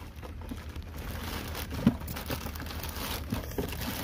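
Clear plastic bag crinkling and rustling as it is handled and pulled off a toy truck, with a scatter of small crackles and one sharper crackle about two seconds in.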